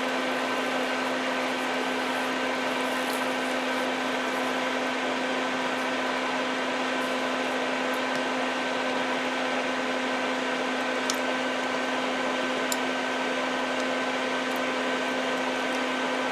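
Electric fan running steadily: an even hum with a low tone and a few fainter higher tones over a whooshing air noise. A couple of faint ticks are heard over it.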